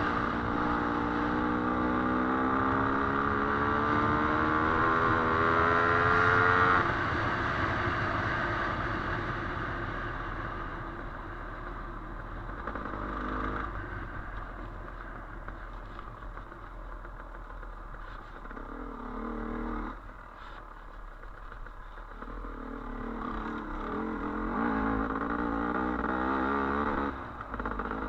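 Dirt bike engine revving with a steadily rising pitch for the first seven seconds or so, then easing off. It picks up again in short bursts, with a longer rev near the end that drops off suddenly.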